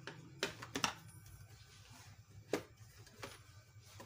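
A few short sharp clicks and knocks of a plastic sewing machine housing cover being handled and pressed into place on a Janome Secio computerised sewing machine.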